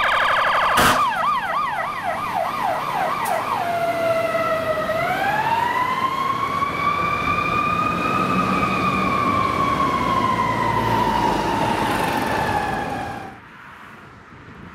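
Fire truck's electronic siren in a fast yelp, sweeping up and down about four times a second, then switching to a slow wail that rises and falls once over several seconds. A short loud burst comes about a second in. The siren cuts off suddenly near the end, leaving faint road and wind noise.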